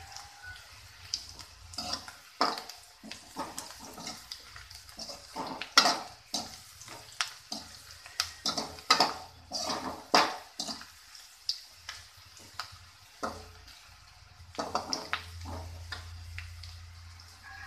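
Perforated steel skimmer scraping and clinking against a steel kadai at irregular intervals as sliced onions are stirred while they fry in oil, over a steady high sizzle.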